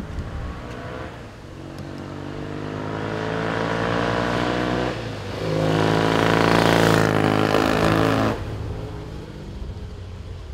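1965 BSA Lightning 650's parallel-twin engine accelerating hard, its pitch climbing through one gear, dipping briefly at a gear change about halfway, then climbing again louder in the next gear before cutting off suddenly about eight seconds in.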